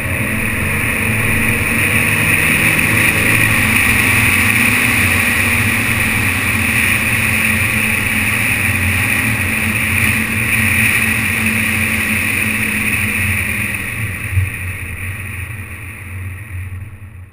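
BMW 530d driving on a road, its steady rumble of road and wind noise muffled by the GoPro's sealed waterproof housing. A single knock comes shortly before the end, and the noise quietens over the last few seconds.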